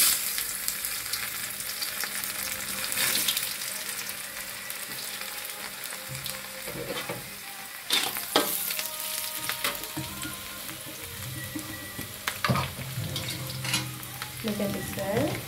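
Chopped carrots sizzling in hot oil in a wok, with a spatula knocking and scraping against the pan now and then.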